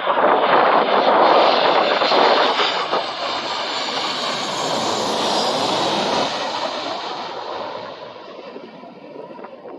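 Boeing 737 jet airliner on landing approach passing low overhead: loud jet engine roar with a high hiss peaking about five seconds in, then fading as the aircraft moves away toward the runway.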